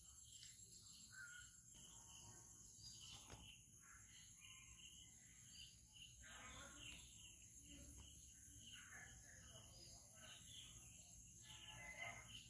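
Faint rural ambience: a steady high-pitched drone of insects such as crickets, with scattered bird chirps.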